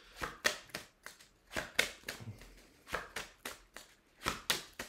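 A deck of oracle cards being shuffled by hand: a string of short card-on-card slaps and flicks in uneven spurts, with brief pauses between them.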